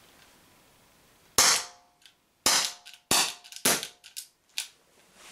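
Umarex HDP50 .50-calibre CO2 pistol firing four sharp pops, about half a second to a second apart, then two weaker pops as the gas gives out. The pistol is running out of CO2.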